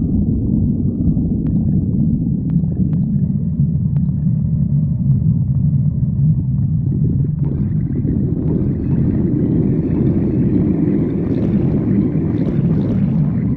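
Stomach growling: a continuous low rumble, with higher gurgling joining in about halfway through and building toward the end.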